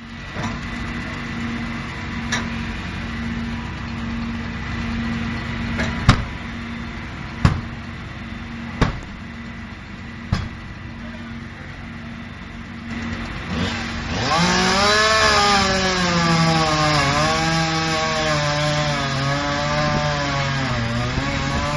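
Fire engine idling with a steady hum, with five sharp knocks of gear being handled. About fourteen seconds in, an engine revs up steeply and keeps running loudly, its pitch wavering up and down.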